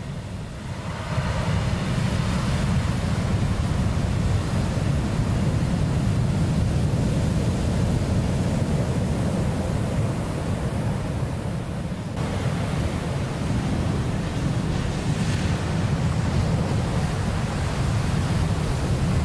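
Ocean surf breaking and washing up a black-sand and pebble beach in a steady roar of noise, with wind rumbling on the microphone underneath.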